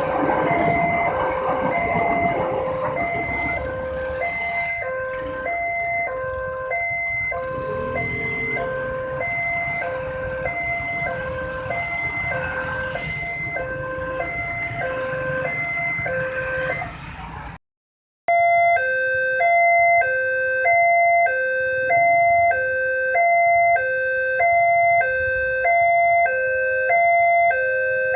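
Railroad level-crossing warning alarm sounding a repeating two-tone electronic chime that alternates about twice a second, over the rumble of a train passing the crossing. After a brief cut about two-thirds of the way in, the alarm is heard alone and louder.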